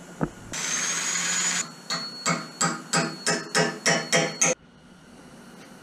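Hammer driving a 16-penny nail into the end grain of a wooden mast: about ten quick strikes, roughly three a second, that stop suddenly. Just before the strikes, a whirring burst about a second long.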